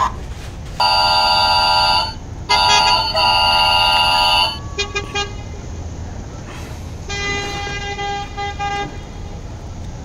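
Electronic horn sound from a battery-powered toy truck: two long, steady honks a little apart, followed near the end by a fainter, shorter tone.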